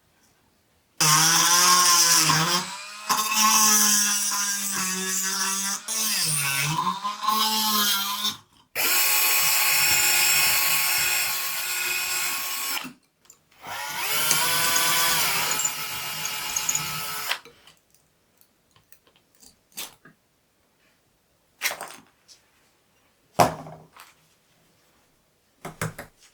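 Small high-speed electric rotary tool (Dremel) running in three long bursts, its motor whine dipping in pitch and recovering as it bears on the work. After that come a few light clicks and knocks.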